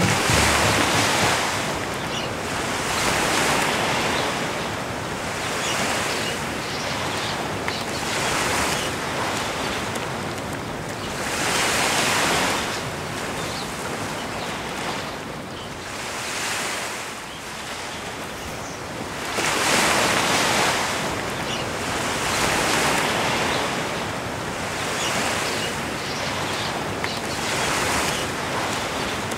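Sea waves breaking and washing on the shore, surging up every few seconds and falling back.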